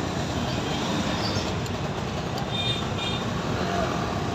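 Steady low background rumble like passing road traffic, with a few faint short high tones about two and a half seconds in.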